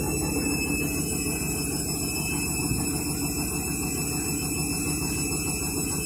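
Candy Smart Touch front-loading washing machine on its spin cycle: the drum turns with a steady motor whine over a low hum.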